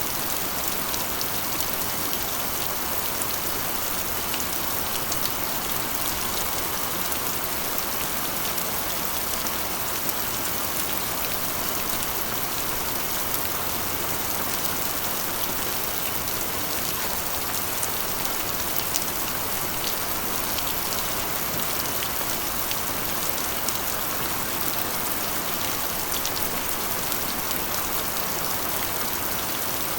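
Steady heavy rain drumming on a corrugated iron roof: a constant hiss sprinkled with many small, sharp drop ticks on the metal.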